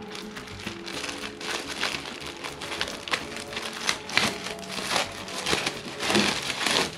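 A thin plastic bag crinkling and rustling as it is untied and pulled open by hand, in irregular bursts that grow louder in the second half, over soft background music.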